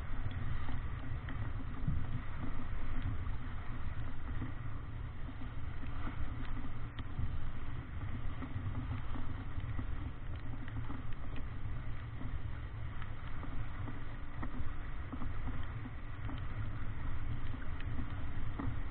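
Steady rushing of wind and water as a Davidson 36 sailing yacht heels over and drives through choppy water, with a deep rumble and a few faint ticks.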